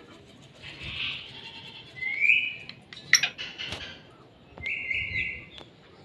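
Caged black francolin calling: about four short, scratchy call phrases spread across the seconds, the loudest and sharpest about halfway.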